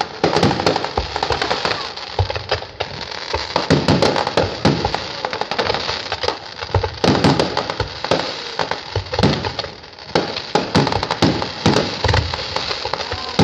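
Fireworks display: a dense volley of aerial shells bursting in quick succession, bangs overlapping with crackling stars, and only brief lulls.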